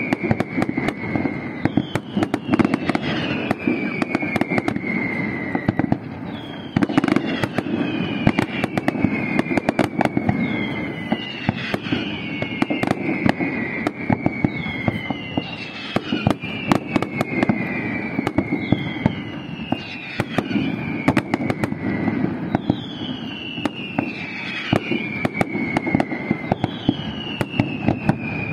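Fireworks display: a continuous barrage of bangs and crackling, with a whistle sliding down in pitch over a couple of seconds that recurs every two to three seconds.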